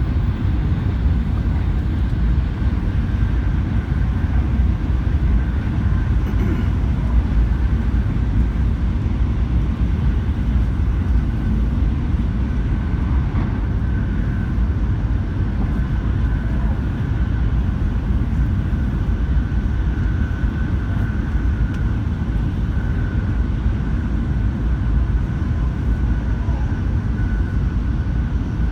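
Shinkansen bullet train in motion: a steady, unchanging low rumble with a faint steady high whine over it.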